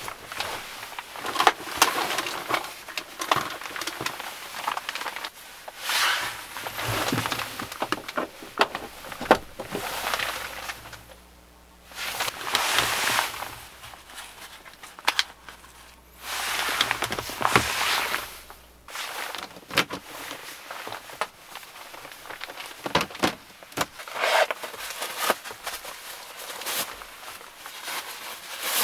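Rustling and swishing of nylon fabric, with scattered light knocks, as down booties and clothing are handled and pulled on. The rustling comes in bursts of a second or two.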